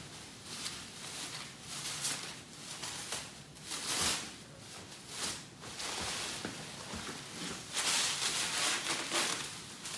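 Plastic bubble wrap crinkling and rustling in irregular bursts as it is pulled off a car grille, loudest about four seconds in and again near the end.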